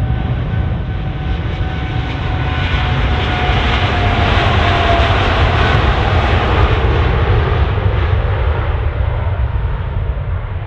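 Boeing 787-8 Dreamliner's turbofan engines at takeoff thrust on the takeoff roll, with a steady deep rumble and a rushing hiss that swells to a peak about halfway through as the jet passes and then fades. A thin engine whine drops slightly in pitch near the middle.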